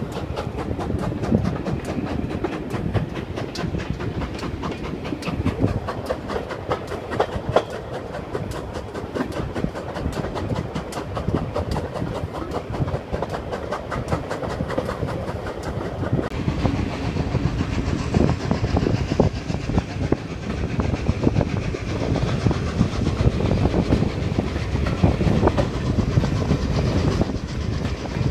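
Steam train heard from an open carriage window while riding behind the locomotive: a steady clickety-clack of carriage wheels over rail joints, mixed with rapid beats and rumble from the working locomotive ahead. The sound changes abruptly about sixteen seconds in to a second run, with less hiss and more low rumble. The first run is behind GWR Modified Hall 4-6-0 no. 6960 Raveningham Hall; the second is behind LNER A1 Pacific no. 60163 Tornado.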